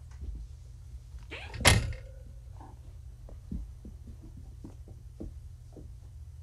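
A single sharp hand clap about two seconds in, the loudest sound, among faint scattered small taps.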